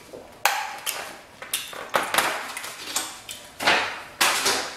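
A fork clicking and scraping in plastic takeout bowls while eating: a series of about half a dozen sharp knocks and scrapes.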